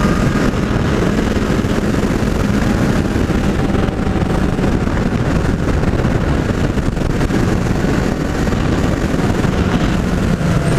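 Kawasaki Z800 inline-four on its stock exhaust, running steadily at cruising speed, mixed with heavy wind rush over the microphone.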